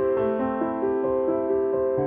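Background music: a keyboard melody of short, evenly paced notes, about four a second.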